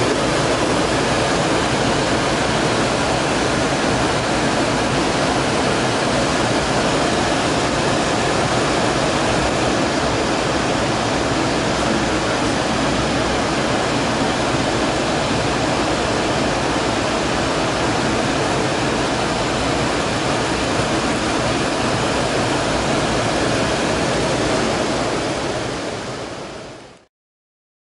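Steady cockpit noise of an Embraer ERJ145 jet in flight on approach: a constant rush of airflow with the engines' hum beneath it. It fades out to silence near the end.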